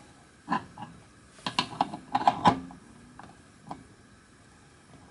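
Small metal clicks and taps of hands handling the brass valve and fittings on a boiler pressure-test rig. There is one tap about half a second in, a quick cluster of clicks a second later, and one more click near the end.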